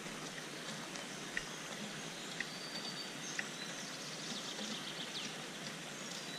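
Steady outdoor background hiss with faint bird calls: short chirps about once a second and a brief higher whistle midway.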